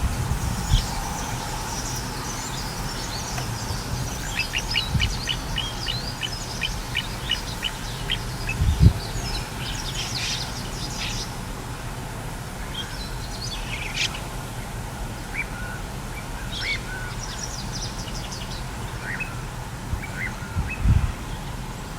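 Little ringed plovers calling: short, high call notes, with a run of quick repeated notes about five seconds in and scattered calls after. A few low thumps, the loudest about nine seconds in, over steady outdoor noise.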